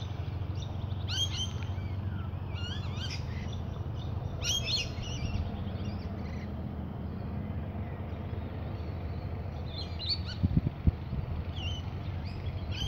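Wild birds calling in short chirping, warbling phrases every few seconds, over a steady low rumble, with a couple of low knocks about ten and a half seconds in.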